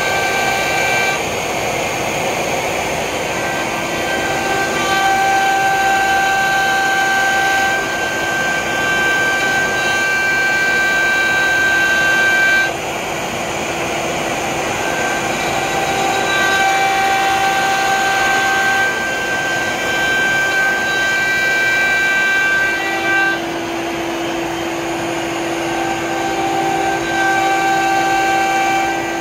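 Romaxx WD-1 CNC router machining a maple board: the router spindle runs steadily under a vacuum dust shoe, and steady whining tones switch on and off every few seconds as the machine changes moves.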